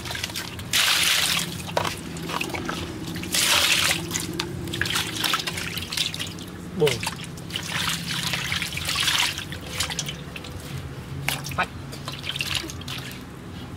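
Water splashing and sloshing in an aluminium basin as hands scrub dead rats clean, coming in several louder surges.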